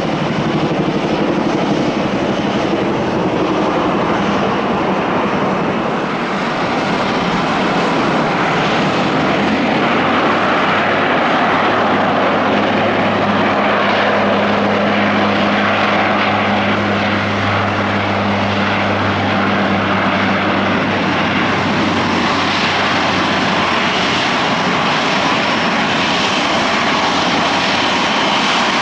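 ANA Bombardier DHC-8 turboprop airliner taking off: engines and propellers at takeoff power make a loud, continuous drone, with a steady low propeller hum through the middle of the run.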